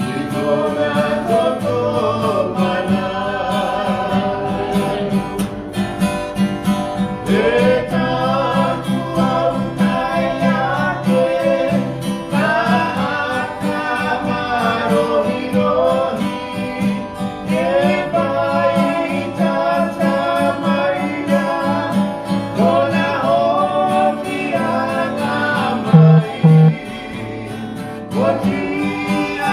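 Singing with strummed guitar accompaniment, typical of a hymn in a church service. Near the end there are two brief loud low thumps.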